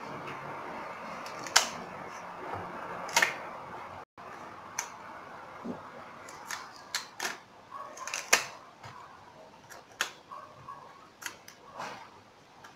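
Outer sheaths of a banana stem being peeled away by hand, the fibrous layers breaking with a series of sharp, crisp snaps at irregular intervals.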